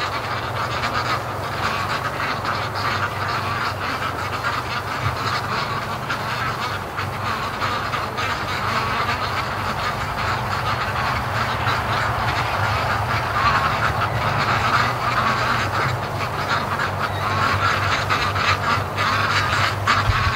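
A large flock of white Pekin ducks quacking all together in a dense, unbroken chatter.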